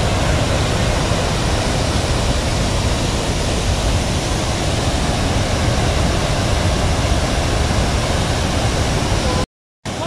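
Steady rush of water from Athirappilly Falls, a wide waterfall in heavy flow, cutting out for a moment near the end.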